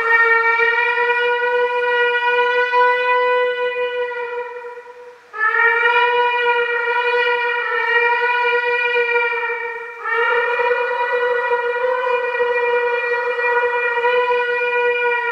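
Shofar blown in three long, steady blasts of about five seconds each, each one a single held horn note that rises slightly into pitch at the start, with short breaks about five and ten seconds in.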